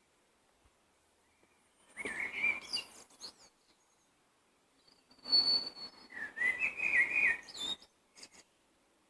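Songbirds singing in two warbled phrases, the first about two seconds in and the second about five seconds in, with a thin, steady high whistle between them and a few short high notes after.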